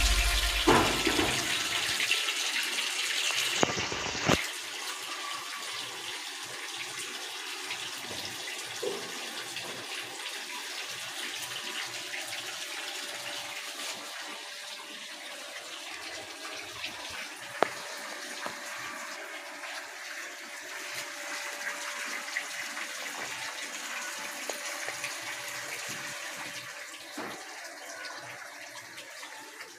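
Steady rushing water noise, even and unbroken, with a few faint clicks; background music with a heavy beat fades out in the first two seconds.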